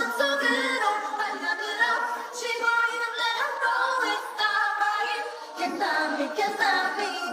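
Many voices singing a melody together with no audible instrumental backing or beat.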